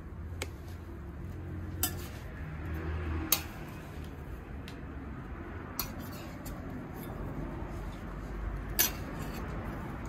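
Metal spatulas clinking and scraping on a steel griddle plate while griddle cakes are lifted and shaped. A handful of sharp clinks, the loudest about three seconds in and again near the end, over a low steady hum.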